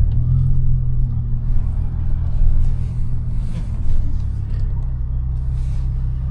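Audi A5 (8T) driving at a steady pace: a low, even engine drone under tyre and road rumble.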